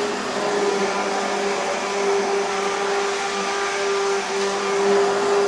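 Hand-held immersion blender running steadily in a pot, puréeing beetroot soup with added coconut milk: a continuous motor whine that holds one pitch.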